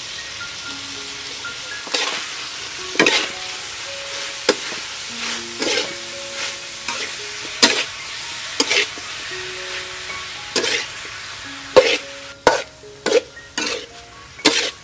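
Green bell pepper and mushrooms sizzling in a hot metal wok while a metal spatula stirs and tosses them, with about a dozen sharp scrapes and clacks of the spatula against the pan, coming faster near the end.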